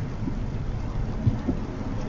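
Car driving on a wet road in rain: a steady low rumble of tyre and road noise with the hiss of rain, and a couple of small thumps in the middle.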